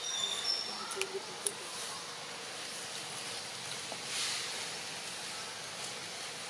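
Outdoor woodland ambience: a steady hiss of background noise, with a few short high chirps at the start and a couple of sharp clicks around a second in.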